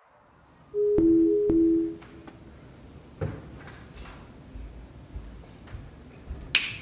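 A short two-note electronic chime, a higher and a lower steady tone, sounding twice in quick succession, then low room noise with scattered faint knocks and a brief hiss near the end.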